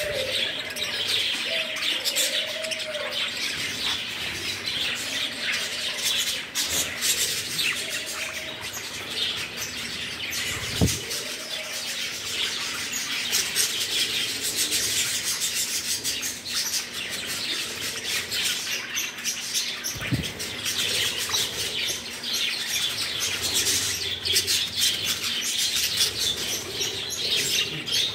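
A flock of budgerigars chattering and chirping constantly while crowding a feeding dish, with wings fluttering as birds land and jostle.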